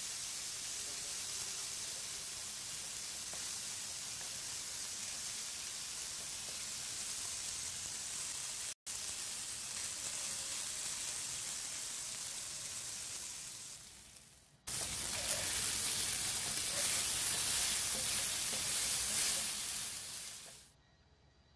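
Thin strips of beef sizzling as they brown in oil in a frying pan. The sizzle cuts out for an instant a little before halfway, fades and comes back louder about two-thirds through, then drops away near the end.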